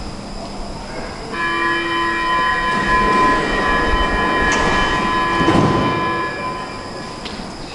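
Stockholm metro train standing at an underground platform while its doors close: a steady chord of high tones sets in abruptly and holds for about five seconds over the train's running noise. There is a brief louder peak a little after five seconds in.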